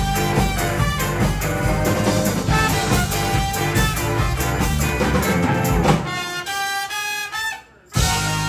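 Recorded band music with drums and a steady beat; about six seconds in the low end drops out for a sparser passage of held notes, then there is a short gap before the full band comes back in.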